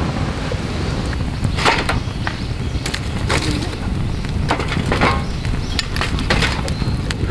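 Wood campfire crackling in a metal fire stand: sharp pops and snaps every second or so over a steady low rush.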